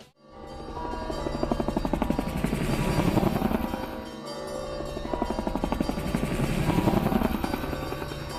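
Helicopter rotor blades chopping as helicopters fly past twice, the sound swelling to its loudest about three seconds in and again about seven seconds in, over music.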